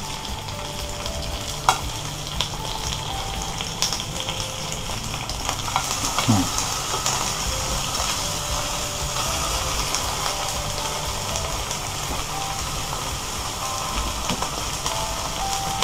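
Langoustines (cigalas) sizzling steadily as they fry in hot olive oil with garlic in a frying pan, with a few light clicks as they are laid in.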